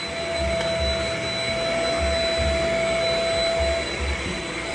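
Shark Rocket DuoClean stick vacuum running, its motor giving a steady whir. A steady whine in it drops out for about a second near the end.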